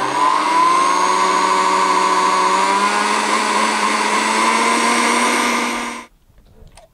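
SMEG retro countertop blender's motor blending crêpe batter of flour, milk and eggs. Its whine rises in pitch during the first second as the motor speeds up, holds steady, then cuts off suddenly about six seconds in.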